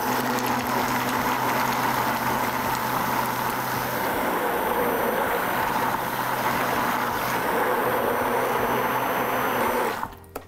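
Handheld immersion blender running steadily in a plastic jug of thin pancake batter, its motor whirring as the blade churns the liquid. It switches off about ten seconds in.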